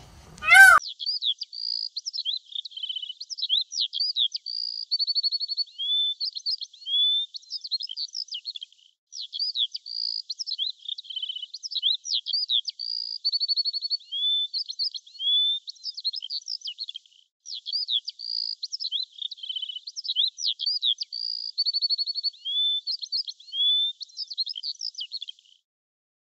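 A single loud, short peacock call just under a second in, then a songbird singing: high whistles, slurred sweeps and fast trills, the same string of phrases repeating about every eight seconds until it cuts off abruptly near the end.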